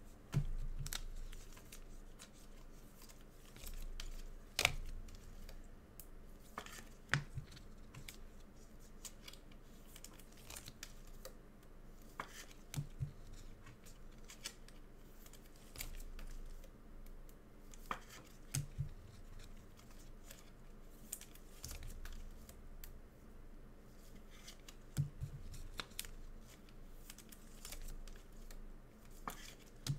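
Trading card packs and packaging being handled and opened: scattered light clicks, tearing and crinkling, with a few soft knocks.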